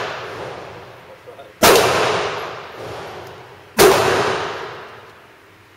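Two pistol shots from a Ruger Mark II .22 about two seconds apart. Each shot is a sharp crack that rings out in a long echo in the indoor range.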